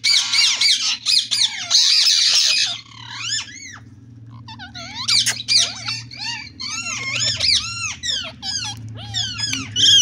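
Rose-ringed (Indian ringneck) parakeets calling in rapid, repeated sharp squawks and chatter. The calls are densest and loudest in the first three seconds, drop off briefly, then start up again about five seconds in, over a steady low hum.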